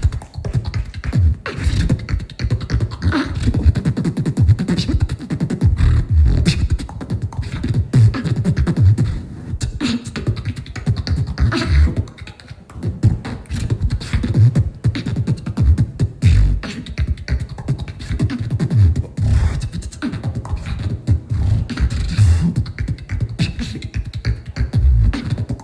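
Live beatboxing through a handheld microphone and PA: a fast, dense run of bass kicks with sharp clicks and snare sounds, briefly dropping in level about halfway through.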